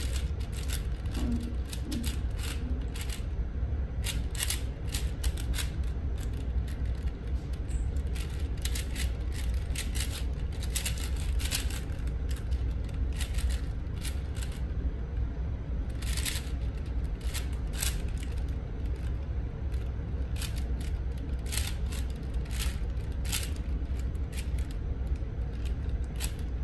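4x4 Rubik's cube being turned fast by hand during a timed solve: a run of quick, irregular plastic clicks and clacks from the layers snapping round, over a steady low hum.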